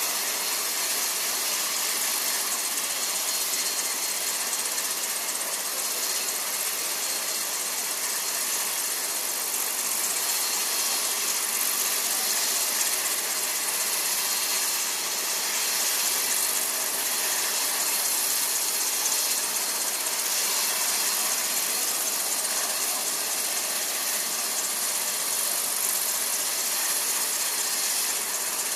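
Steady hiss-like background noise, even throughout, with no distinct events or voices.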